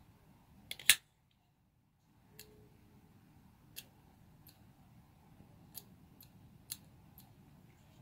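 Benchmade AFO automatic folding knife firing its blade open with one loud, sharp metallic snap about a second in, followed by several fainter, separate clicks as the knife is handled.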